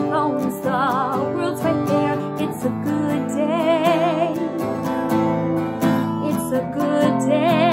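A woman singing a slow song with vibrato on the held notes, accompanying herself by strumming an acoustic guitar.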